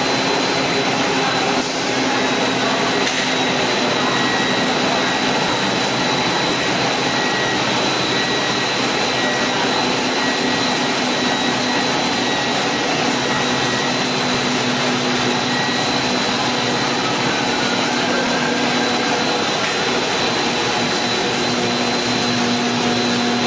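Hot melt adhesive label coating and laminating machine running: a loud, steady mechanical noise with a constant low hum and a thin high whine.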